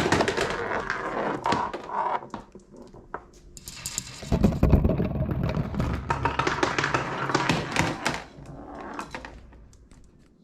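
Marbles clattering and rattling down a toy marble run, with a heavier thud about four to five seconds in, the clatter fading away near the end.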